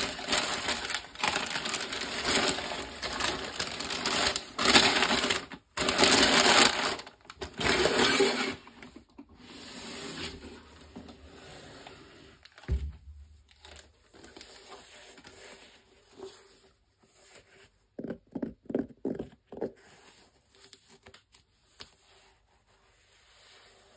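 Tissue paper crinkling and rustling as a sneaker is unwrapped and handled, loud for the first eight seconds or so. Then softer handling sounds, with a single low thump a little past halfway and a few quick knocks a few seconds later.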